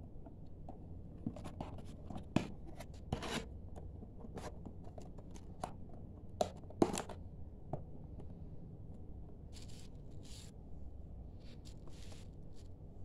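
Cardboard box of glass tumblers being closed and handled: a run of sharp clicks, taps and scrapes as the flaps are folded in, the loudest twice, then a few short rustling slides of cardboard near the end.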